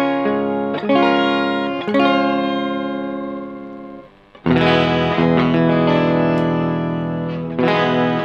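Electric guitar chords played through an Electro-Harmonix Micro POG polyphonic octave generator, with the octave voices blended with the dry guitar. A few chords are struck in the first two seconds and ring out. After a brief gap about four seconds in, a deeper, fuller chord rings, and another is struck near the end.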